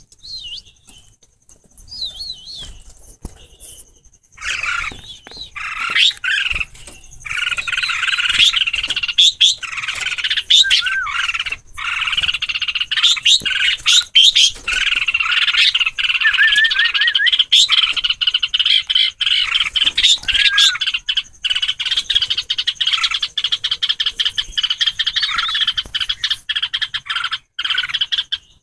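Red-whiskered bulbul chicks calling in a dense, continuous stream of high chirps, with many short rising notes, typical of begging. The calling starts about four seconds in and stops shortly before the end. Sparse chirps come first, and clicks and rustles of the phone against the wire cage run through it.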